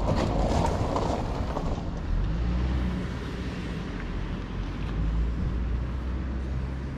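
City street traffic noise: a steady low rumble of road vehicles, with a louder swell in the first two seconds as a vehicle goes by.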